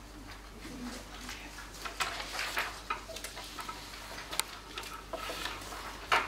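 Scattered light clicks, taps and short scratches of pens writing on paper and papers being handled, with a louder knock near the end.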